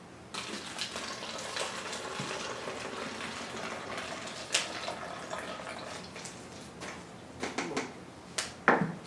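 Hydrogen peroxide poured from a measuring cup into a plastic water bottle: a steady trickle of liquid for about six seconds. A few sharp knocks follow near the end.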